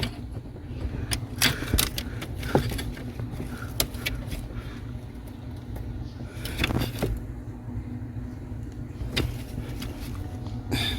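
Scattered clicks and knocks of a car's pedal assembly and tools being handled under the dashboard, over a steady low hum.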